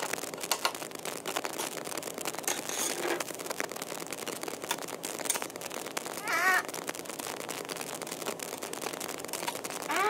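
Small clicks, ticks and rustles of hands working a tiny screw into a motherboard with a small screwdriver, the anti-static bag under the board crinkling. A brief wavering, warbling sound comes about six seconds in.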